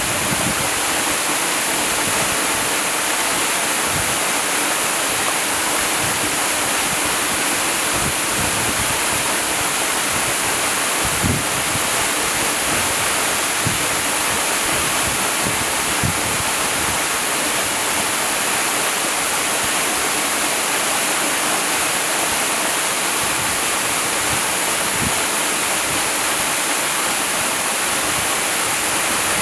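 Waterfall: a steady, unbroken rush of falling water, with now and then a brief low thump.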